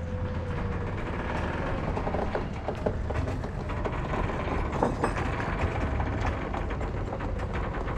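A John Deere 310C backhoe's diesel engine running with a steady low rumble, with scattered metallic clicks and clanks in the middle.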